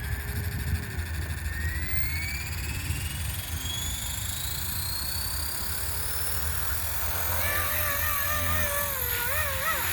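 Blade 235 CP collective-pitch RC helicopter spooling up: a whine rises steadily in pitch for about seven seconds, then wavers up and down as the rotor speed shifts. A steady low rumble runs underneath.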